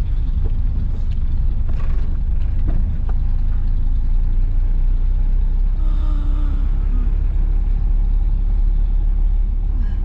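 Steady low rumble of a 1990 Volkswagen Parati driving slowly, heard from inside the car: engine and road noise.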